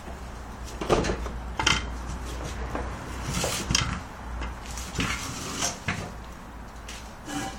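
Scattered knocks and clanks, about half a dozen over several seconds, from a boat trailer and its gear being shifted by hand, over a low steady rumble.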